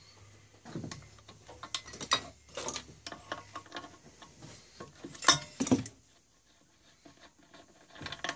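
Metal clicks, clinks and knocks of hand tools on a Maytag Model 72 twin-cylinder engine as a spark plug is taken out to check it for oil fouling, with the loudest clank about five seconds in. A low steady hum runs under the first half.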